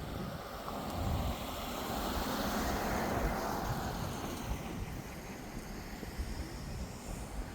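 Wind buffeting the microphone with an uneven low rumble, and a rushing noise that swells to a peak about three seconds in and then fades.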